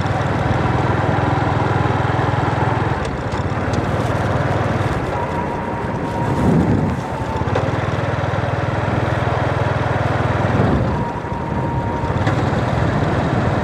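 Small motorbike engine running steadily as it rides along, with road and wind noise. The engine eases off about three seconds in and again near eleven seconds, and swells briefly in between.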